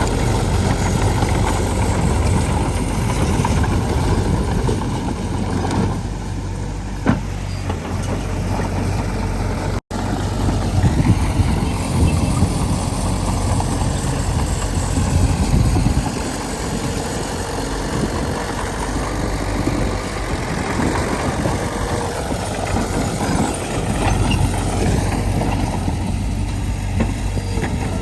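Diesel engine of earthmoving machinery running steadily with a low rumble. There is one sharp knock about seven seconds in, and the sound cuts out for an instant near ten seconds.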